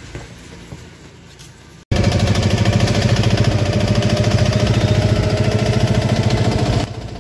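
Engine of a tempo, a small shared passenger vehicle, running loudly with a fast, even throb while riding in it. It cuts in abruptly about two seconds in after quieter street noise and drops away near the end.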